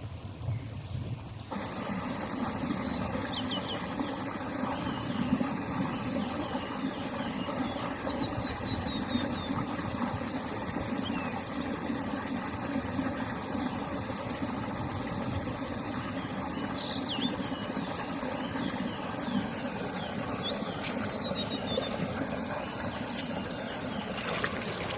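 A steady motor hum, like an engine running, comes in abruptly about a second and a half in and holds unchanged. Birds chirp briefly over it a few times.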